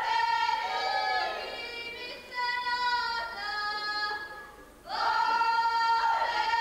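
Group of women singing together in Herzegovinian folk style, holding long sustained notes. The singing fades away about four seconds in and comes back strongly about a second later.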